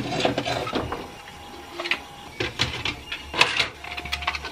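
Hard 3D-printed plastic helmet pieces being handled, giving an irregular string of light clicks and knocks.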